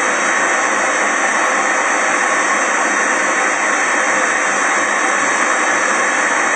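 Onions and spices frying in hot oil in a pan, giving a steady loud sizzling hiss.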